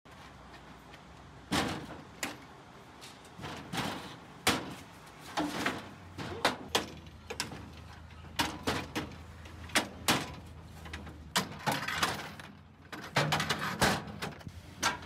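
Metal legs of a Tommy Camper slide-on being laid into a slide-out storage drawer: a string of irregular knocks and clunks as the tubes are set down against the drawer and each other.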